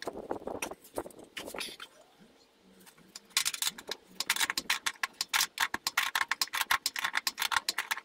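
Rapid hand scrubbing on the chassis underside of a Talbot Express van, cleaning muck off the metal for an earth connection. A few scrapes come first, then a short lull. From about three seconds in the scrubbing strokes come quickly and steadily, around six a second.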